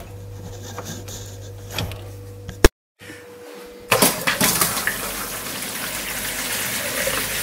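Water from a newly fitted monobloc kitchen mixer tap running into a stainless steel sink, starting suddenly about four seconds in and running steadily. The tap is being run to test the new fitting. Before it there is a low steady hum with a few faint clicks.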